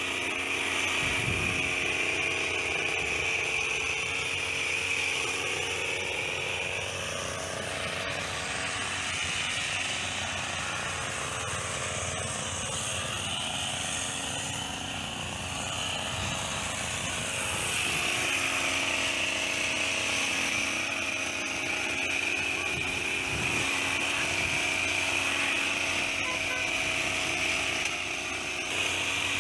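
Petrol hedge trimmer's small two-stroke engine running with its blades working, the engine speed sagging briefly near the middle and rising again.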